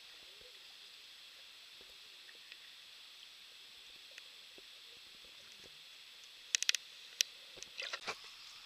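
Faint underwater ambience picked up through a camera's waterproof housing as a steady hiss. A few sharp clicks and knocks sound about six and a half seconds in. A rougher cluster follows near the end, as a hand handles the camera and pulls water plants toward the surface.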